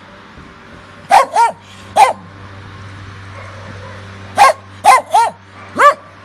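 A dog barking in short, high yaps: three in quick succession, a pause of about two seconds, then four more.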